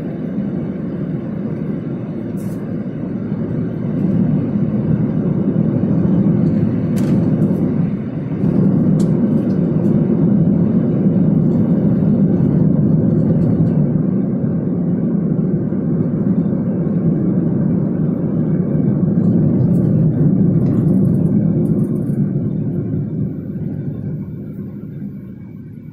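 Steady low rumble of road and engine noise inside a moving car's cabin. It grows louder about four seconds in, dips briefly, and fades away near the end.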